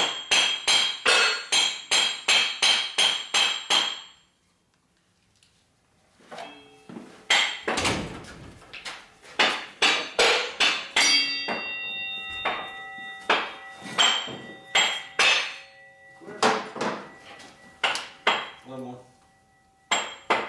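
Big hammer pounding on metal: a fast run of blows about three a second, then after a pause of about two seconds more blows, slower and uneven, with the struck metal ringing.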